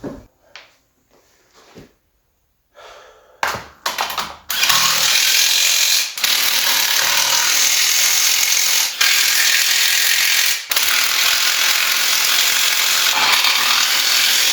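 A few quiet handling knocks, then a loud power tool runs for about ten seconds, with three brief breaks.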